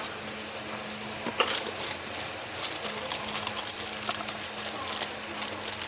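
Irregular clicking and crinkling handling noises, beginning about a second and a half in, over a steady low hum.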